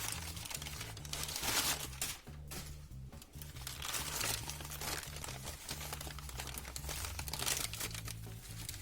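Packing paper being crumpled and torn as it is pulled out of a parcel, in irregular rustling bursts.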